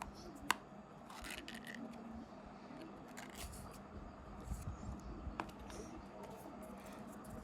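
Candy packaging being handled: scattered sharp clicks and short bursts of crinkling and rustling, over a faint steady hum.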